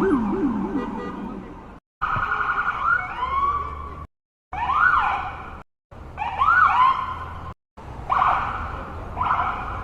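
A run of separate ambulance siren sound effects with abrupt silent cuts between them. A fast warble fades out, then come short rising and falling sweeps, and near the end a siren repeats a steady tone about once a second.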